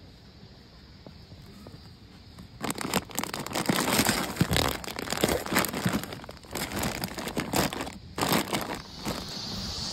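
Plastic bag of packaged ice crinkling and rustling as a hand grabs and moves it inside a soft cooler, starting about two and a half seconds in and going on in quick irregular crackles, with a brief pause near the end.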